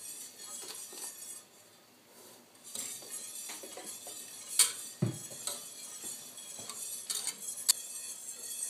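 Metal wire whisk stirring hot milk in a stainless steel pot, dissolving butter and sugar, its wires clinking and scraping against the pot's sides and bottom. The stirring pauses briefly about two seconds in, and a few sharper knocks come later, the heaviest about five seconds in.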